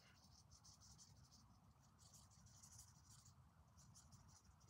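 Near silence with faint, irregular scratchy strokes of a fine paintbrush dragging oil paint across a canvas.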